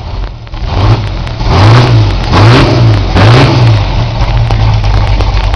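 Motorcycle engine revved several times in quick succession, each rev rising and falling in pitch, then running at a steady idle.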